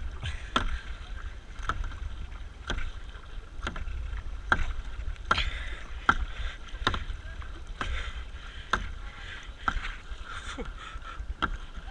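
Kayak paddle strokes in a steady rhythm, about one sharp splash or knock a second as the blades of a double-bladed paddle dip into the water on alternate sides, over water swishing along the plastic hull.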